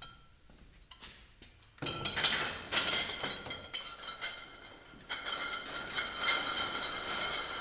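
Glass wine bottles clinking and rattling together in a wire-mesh cage pallet as it is rolled on casters across a brick floor, starting about two seconds in, with a ringing clink of glass throughout.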